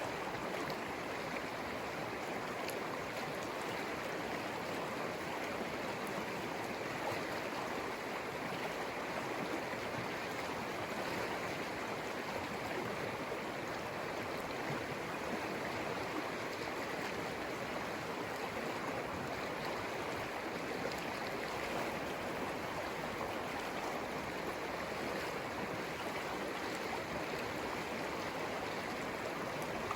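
The Conejos River flowing: a steady, unbroken rush of water over its bed.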